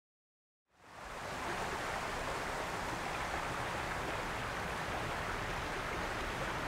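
A shallow creek running over rocks, a steady rush of water that fades in about a second in after silence.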